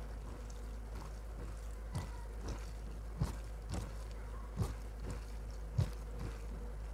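Hand mixing rice and chicken curry on a steel plate: soft wet squishes and light taps, starting about two seconds in and coming roughly once or twice a second, over a steady low hum.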